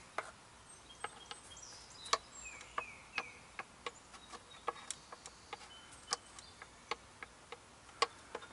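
Light, irregular clicks and taps as a Toyota transmission strainer is handled and pressed up against the valve body to seat it on its O-ring. Faint short chirps, falling in pitch, come in quick series of two or three.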